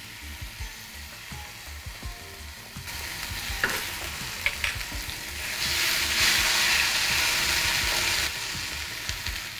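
Chopped tomato and ginger paste sizzling in hot mustard oil in a nonstick frying pan, stirred with a wooden spatula that scrapes and taps the pan. The sizzle swells about three seconds in, is loudest from about six to eight seconds, then eases back.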